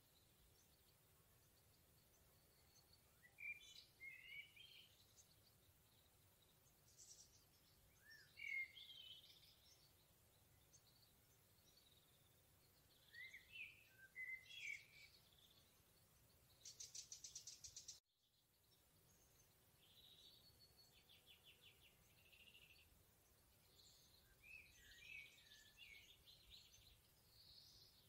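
Songbirds singing faintly in a forest: short warbled phrases every few seconds, and a fast rapid trill about two-thirds in, just before the sound briefly drops out.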